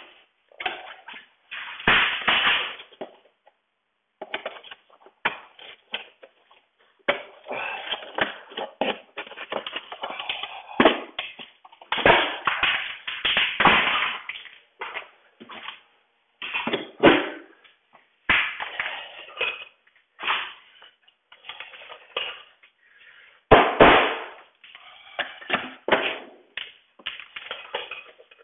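Irregular knocks, taps and scraping of hand tools against the old wooden window frame as the old window's parts are worked loose and pulled out. The loudest hits come in clusters, about two seconds in, around the middle, and a few seconds before the end.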